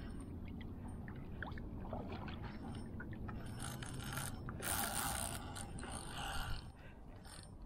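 Spinning fishing reel being cranked against a hooked fish, a mechanical whir that grows louder from about halfway through, over a steady low rumble.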